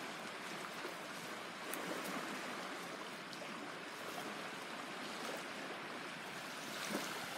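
Creek water running steadily, with a few faint clicks scattered through it and one slightly louder near the end.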